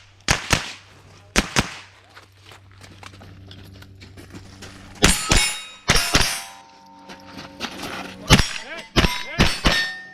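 Rimfire rifle shots fired in a quick string, with steel targets clanging and ringing as they are hit. The sharp reports come in close pairs, with a lull of about three seconds in the middle.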